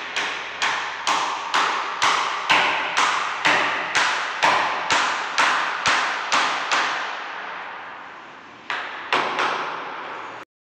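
Hammer striking a steel door hinge on a wooden door frame, about two blows a second, each ringing on briefly. After a pause of about two seconds, two more blows come near the end.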